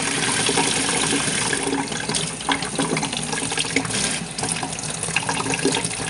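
Water running steadily from a utility-sink faucet through a flow-restrictor insert that gives an almost showerhead-like spray, splashing into the sink.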